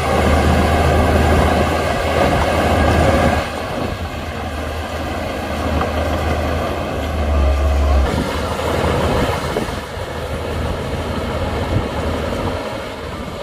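Shantui DH17C2 bulldozer's diesel engine working under load, a steady low heavy-machine drone. The engine note drops about three and a half seconds in, swells again briefly a few seconds later, then eases off.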